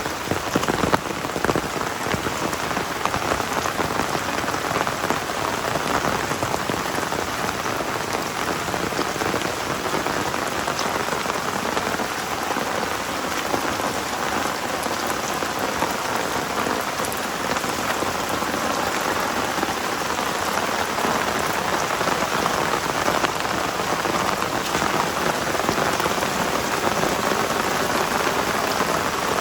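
Heavy rain falling steadily: a dense, even patter of drops, with a few sharper drop hits in the first second.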